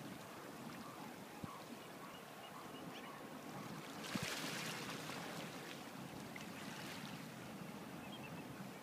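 Faint harbour-side ambience of water lapping and wind, with a louder hissing rush starting about four seconds in and fading over the next few seconds.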